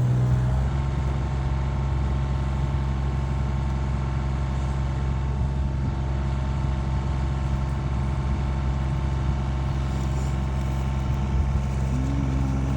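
Engine of farm machinery running steadily at a constant idle-like speed, a low even hum with no change in pitch.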